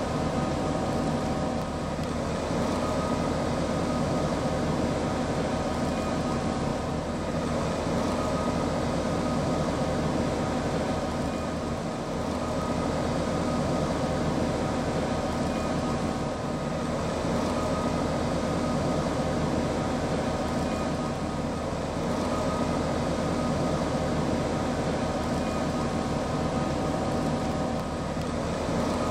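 Liebherr LR11000 crawler crane's diesel engine running steadily, with a constant whine over the rumble.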